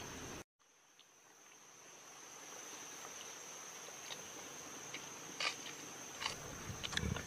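Steady high-pitched forest insect drone, cut off briefly about half a second in and fading back up. In the second half come scattered sharp crackles and clicks, loudest near the end.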